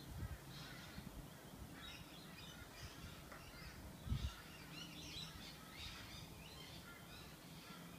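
Birds calling in the background in short scattered bursts, with a few soft thuds of a body rolling on a foam floor mat; the loudest thud comes about four seconds in. A faint low hum runs underneath.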